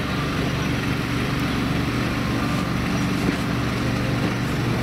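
Diesel locomotive engine running with a steady low drone as the train moves slowly along a station platform.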